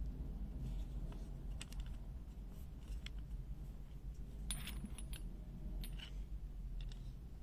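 Steel Wera 1/2-inch drive sockets clinking and clicking as they are handled and set down, with their plastic hangers clacking; a quick cluster of clinks about halfway through is the loudest.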